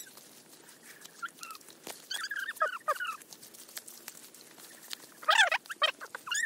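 Short, high-pitched animal cries in a few quick bursts, a group near the middle and a louder cluster about five seconds in.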